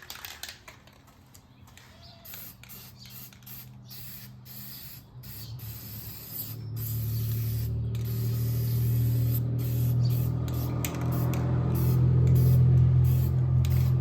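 Aerosol spray-paint can spraying a wheel in repeated short hissing bursts. About halfway through, a steady low drone comes in and becomes the loudest sound.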